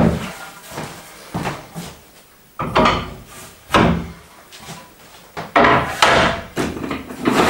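Heavy oak boards being set down and shifted on a wooden workbench: about five separate wooden knocks and clunks with short pauses between.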